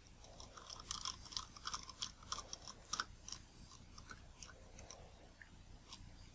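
Faint, rapid small clicks and crackles from a disassembled Nikon Series E 50mm f/1.8 lens being turned in the hands, its rings and new 3D-printed focus key being worked. The clicks are densest in the first few seconds, then come sparser.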